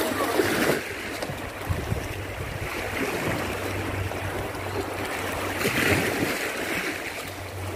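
Small sea waves washing and splashing over shoreline rocks, the wash swelling every few seconds, with a steady low rumble of wind on the microphone.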